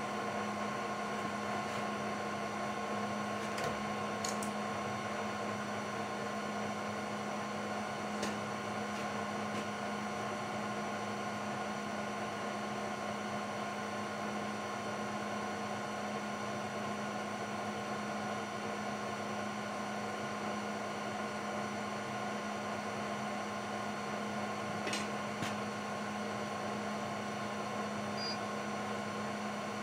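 Steady hum of shop machinery, with a few faint clicks of tooling being handled at a milling machine, a few seconds in and again near the end.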